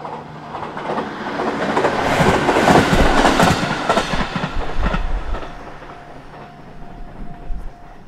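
Electric passenger train passing over a level crossing. The rolling noise builds, peaks about three seconds in with the wheels clacking over rail joints, and dies away after about five seconds, with the crossing's warning bell ringing on behind it.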